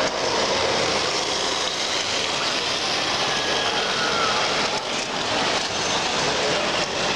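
Steady, even background din of a busy exhibition hall at a model-train show, with no single event standing out.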